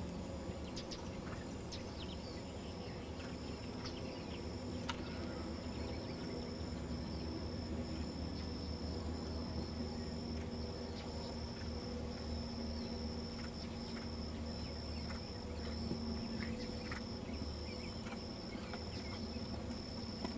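Insects trilling: a high, thin chirr that breaks off briefly and resumes about every second, over a low steady hum.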